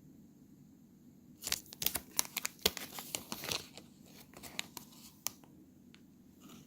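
Plastic packaging of a Kingston DDR3 SODIMM memory module crinkling and crackling as it is handled: a dense run of sharp crackles starting about a second and a half in, thinning to a few scattered clicks by about five seconds.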